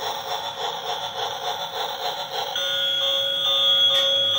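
Electronic sound chip of a battery-powered transparent gear toy bullet train: a warbling alarm-like tone repeating three or four times a second, changing a little over halfway through to a tune of steady electronic beeps.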